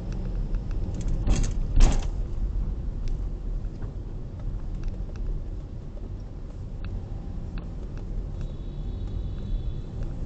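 Car driving in traffic, heard from inside the cabin: a steady low road and engine rumble, with two loud thumps about half a second apart a second or two in.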